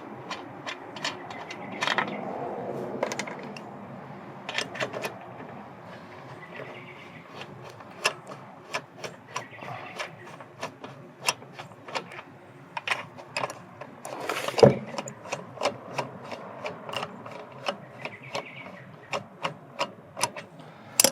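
Metal hand tools working on a car's wheel: a long run of separate sharp clicks and clanks, at times in a quick even rhythm like a ratchet, with one louder knock around fifteen seconds in.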